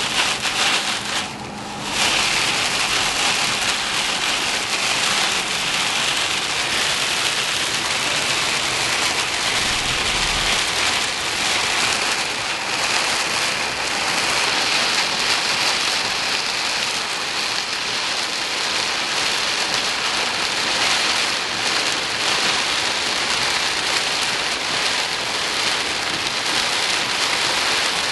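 Heavy rain falling, a steady hiss that dips briefly about a second in.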